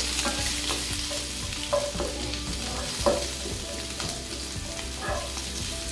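Chopped onions, garlic, ginger and green chillies sizzling in mustard oil in a nonstick frying pan. A wooden spatula scrapes and taps the pan about once a second as it stirs them.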